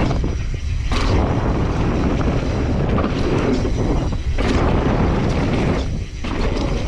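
Mountain bike ridden fast down a dirt jump line: wind rumble on the helmet or bar camera's microphone and knobby tyres on loose dirt. There are brief lulls as the bike leaves the ground over the jumps, with a thump on landing about a second in and again about four and a half seconds in.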